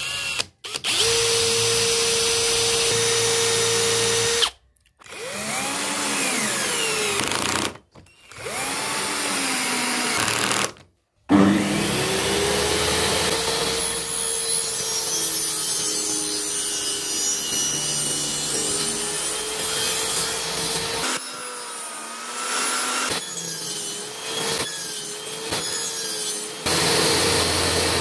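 A cordless drill running and boring into plywood in short takes broken by abrupt cuts, then a table saw motor running steadily with its blade spinning freely for the rest of the time, its pitch wavering slightly.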